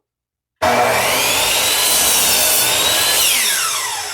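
Electric power saw running at full speed, starting abruptly about half a second in, then switched off near the end, its pitch sliding down as the blade spins down.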